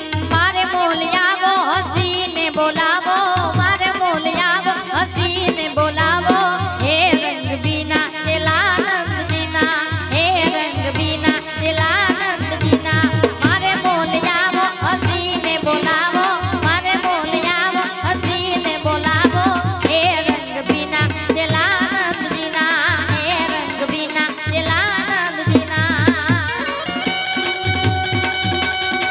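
Live Gujarati folk music: a fast, heavily ornamented melody on an Indian banjo (bulbul tarang) over a steady tabla and dholak beat. Near the end the melody gives way to steady held notes.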